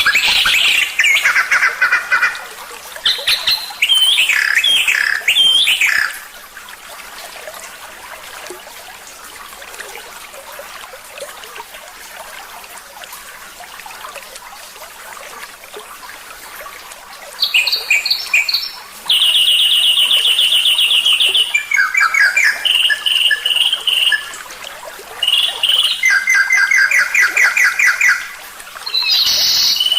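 Songbird singing loud, varied whistled phrases, then a pause of about ten seconds, then rapid buzzing trills and fast runs of repeated notes.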